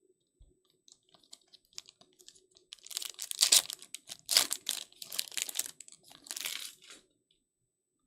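A trading card pack wrapper being torn open and crinkled, loud crackling rustles for about four seconds that stop suddenly, after a few light clicks and taps from handling the cards.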